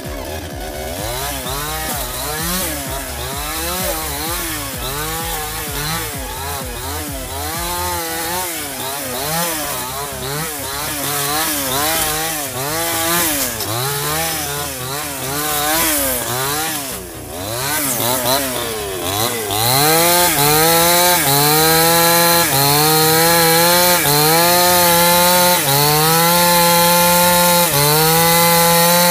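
Two-stroke petrol chainsaw cutting brush and branches. For the first two-thirds the engine revs up and down about once a second. Then it is held loud at full throttle, dipping briefly every couple of seconds as the chain bites into the wood of a stump.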